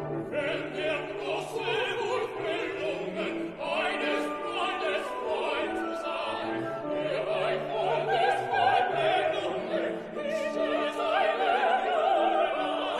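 Operatic music: a singing voice with wavering, vibrato-laden sustained notes over an orchestra.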